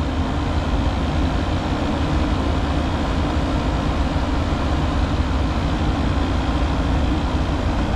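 Steady mechanical drone with an even hiss, strongest in the low end and unchanging throughout.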